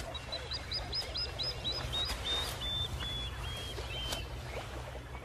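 A bird calling a series of about a dozen short, high notes that step down in pitch and slow as they go, ending about four seconds in, over a steady low hum.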